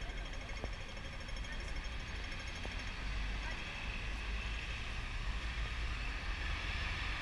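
Busy city street ambience at a pedestrian crossing: steady traffic rumble with crowd voices. The low rumble grows a little about three seconds in, and a fast, high ticking from the crossing signal fades out about two seconds in.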